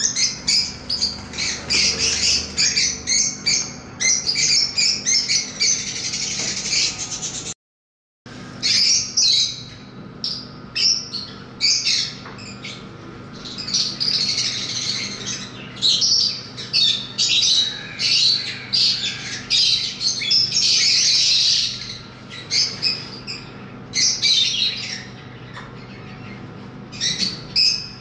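A flock of caged lovebirds chattering: many rapid, overlapping high chirps and squawks, with a brief break about eight seconds in.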